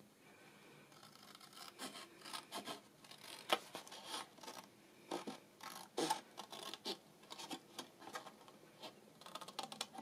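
Scissors cutting through card: a run of short, irregular snips with a light scratching of the card between them.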